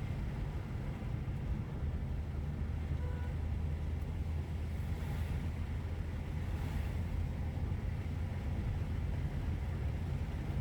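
Steady low rumble of a car being driven.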